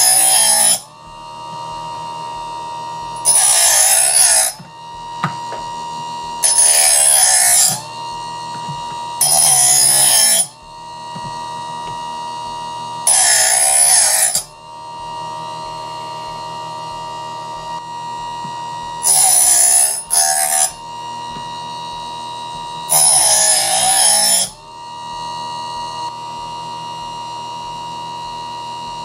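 Mastercraft electric knife sharpener's diamond wheel running with a steady whine. A steel knife blade is drawn through the sharpening slot seven times, and each pass is a loud, harsh grinding hiss lasting a second or so. The passes stop about 25 seconds in, leaving only the motor whine.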